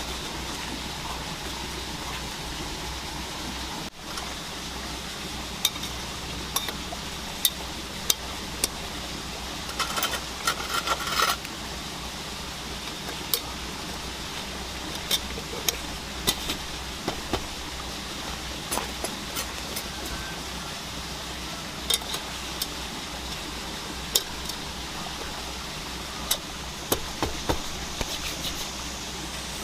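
Cooking utensils and cookware clinking and knocking now and then over a steady background hiss, with a quick run of clatter about ten seconds in.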